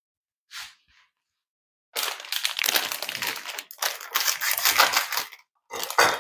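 Plastic bag of limes crinkling and rustling as it is slit open with a cleaver and handled, starting about two seconds in with a short break near the end.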